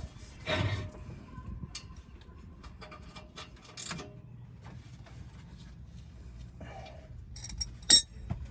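Hand tools clicking and clinking against metal under the car while working an exhaust part loose, with a louder knock about half a second in and a sharp, loud click near the end.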